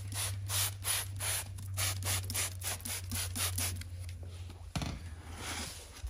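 Trigger spray bottle of soapy water squirted rapidly over a lawn tractor tire to leak-check it, about five short hissing squirts a second, then a single knock near five seconds in.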